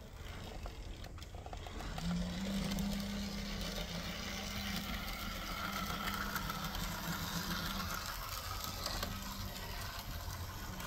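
Märklin Z-scale V36 diesel model locomotive running on its track, its small electric motor whirring steadily. It gets louder about two seconds in as the locomotive comes close.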